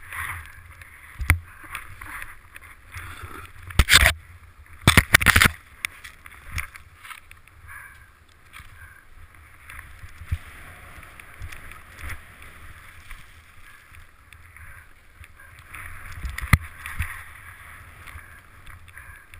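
Powder snow hissing steadily under a downhill descent, heard through a helmet-mounted camera, with sharp knocks of the mount about four and five seconds in and again near the end.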